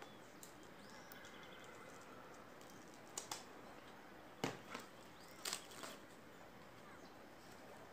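A few short snips and rustles as scissors cut open a new book's wrapping, with a quiet room behind. The loudest click comes about halfway through.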